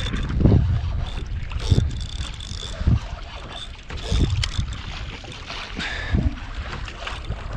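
Wind buffeting the microphone in irregular low gusts, with small waves slapping and splashing against the hull of a Hobie Passport 10.5 sit-on-top kayak. A faint thin high whine comes and goes through the middle.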